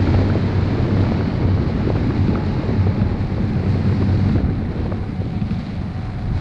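Wind buffeting the camera microphone during paraglider flight: a loud, steady rumbling roar of airflow that eases a little near the end.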